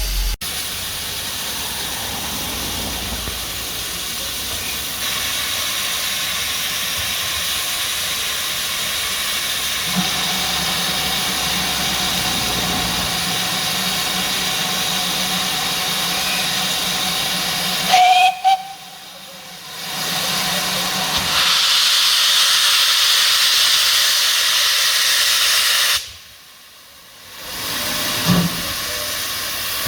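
Steam hissing steadily from a GWR steam locomotive. A short, sharp note sounds just past halfway, and the hiss drops away briefly twice.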